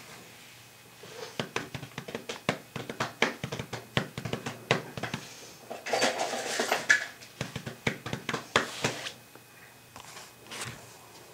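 Tools and parts being handled: a quick, irregular run of clicks and knocks, with a louder scraping rustle about six seconds in.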